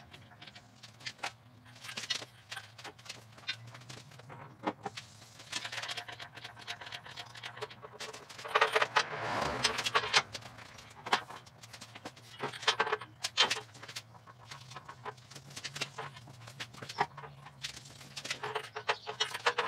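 Scattered metallic clinks and chain rattles from a shop engine hoist as it swings and lowers an engine and transmission on its chain, with a longer run of rattling about nine seconds in.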